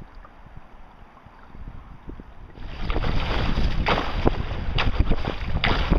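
Wind buffeting the microphone and choppy water splashing around a moving canoe. The noise starts abruptly and loudly about two and a half seconds in, with repeated sharp splashes. Before that there is only a faint low wind rumble.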